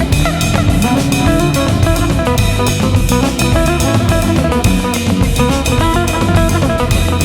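Background music with a steady drum-kit beat and guitar.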